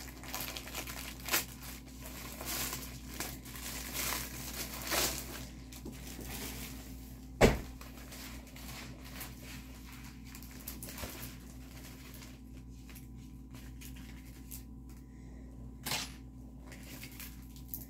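Packaging being torn open and crinkled while a small diamond painting kit is unwrapped, busiest in the first several seconds, with a single sharp knock about seven seconds in and a softer one near the end.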